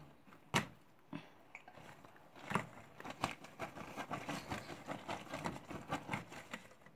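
Homemade glue-and-borax slime with shaving foam being stretched and pulled, giving a dense run of small wet clicks and crackles from about two and a half seconds in. A single sharp click comes about half a second in.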